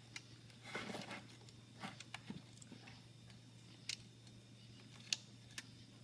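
Quiet room tone with a steady low hum and a few sharp, scattered light clicks and rustles from the handheld camera being handled.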